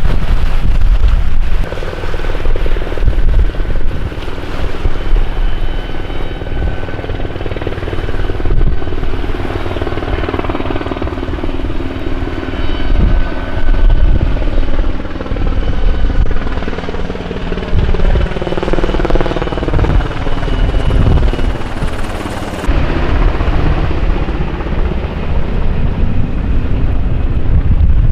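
Coast Guard search helicopter flying low nearby: a loud, continuous rotor-blade chop with a thin, steady turbine whine. About two-thirds of the way through, the tone sweeps and phases as the helicopter passes close.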